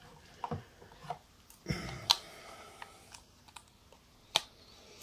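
Scattered clicks and light knocks from hands handling a Nikon F2A Photomic's metal body and working the locking key of its hinged film back, which is a bit stiff; a sharper click comes about two seconds in and another near the end.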